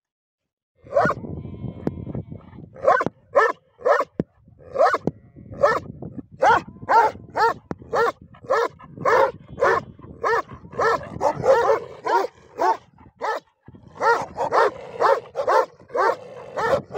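Two or more large shepherd dogs barking over and over, about two barks a second, starting about a second in, with a brief pause near the end before the barking picks up again.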